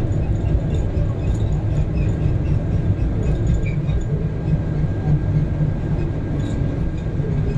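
Inside a moving bus: steady low engine and road rumble, with light rattles and clicks from the cabin.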